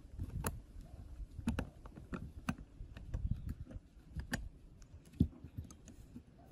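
Irregular small metal clicks and taps of a painted steel ratchet strap buckle being handled and assembled by hand, a pin being fitted through its frame. The loudest click comes about five seconds in.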